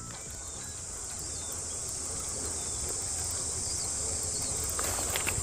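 Steady, high-pitched chorus of summer insects buzzing without a break, with a low rumble underneath.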